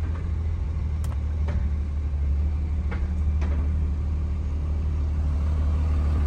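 Cummins inline-six turbo-diesel in a 2006 Ram 2500 running at low speed, heard from inside the cab: a steady deep rumble with a few faint clicks.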